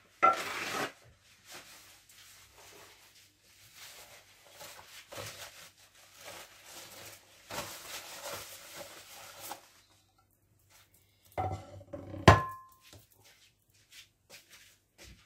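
Soft rustling and handling noises, then about twelve seconds in a glass platter set down on the marble counter with a sharp clink that rings briefly.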